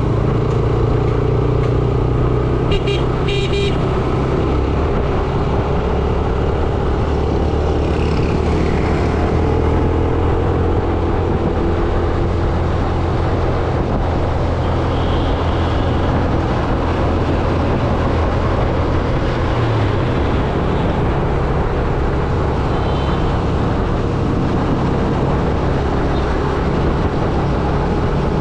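Yamaha YBR 125G's single-cylinder four-stroke engine running steadily under way in heavy traffic, with the hum of surrounding vehicles. Vehicle horns toot briefly about three seconds in, and again shortly near the middle and later on.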